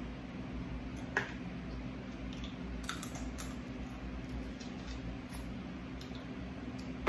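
A few short clicks and snaps of boiled crab shell being picked apart by hand, with soft eating sounds, over a steady low hum.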